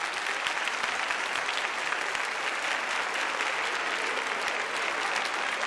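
A large theatre audience applauding steadily at the close of a song: a dense, even patter of many hands clapping.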